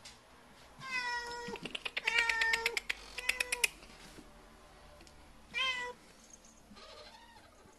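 Domestic cats meowing: three meows close together in the first few seconds, the later two with a fast pulsing rattle, then a shorter meow near the six-second mark.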